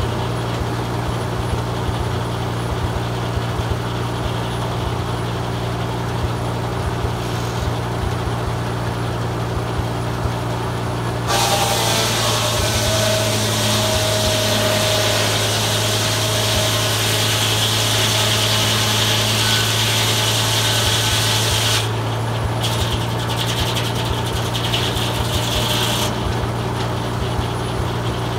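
Farmall M tractor engine running steadily, belted to a Foley Belsaw circular sawmill with the blade spinning. About eleven seconds in, the blade cuts through a pine log for about ten seconds, a loud cutting noise over the engine, then drops back to the engine and free-spinning blade, with a few brief touches of the blade near the end.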